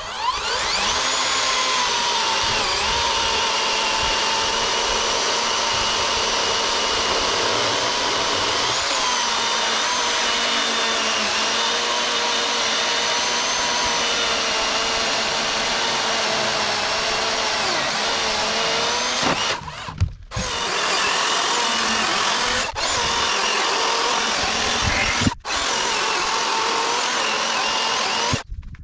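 Powerworks 60V brushless cordless chainsaw spinning up and cutting oak: a steady electric motor whine with chain and wood noise. It cuts out briefly several times in the last third.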